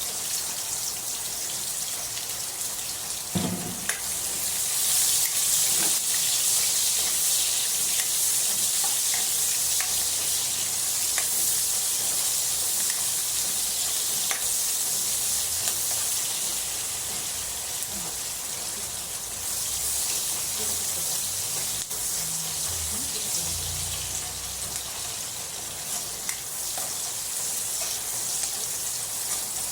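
Food sizzling in hot oil in a pan: a steady, high-pitched hiss that starts suddenly and gets louder a few seconds in. There is a short knock about three and a half seconds in.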